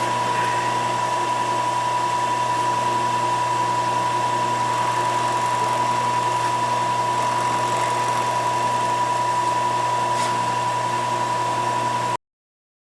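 Milling machine running steadily while cutting a clearance pocket in steel hinge parts, with a constant whine over a low hum. It stops abruptly near the end.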